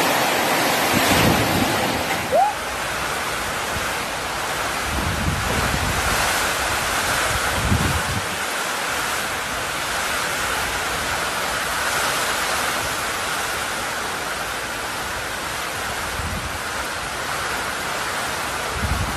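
Heavy rain pouring down in strong gusting wind, with gusts buffeting the microphone now and then. A short rising whistle sounds about two seconds in.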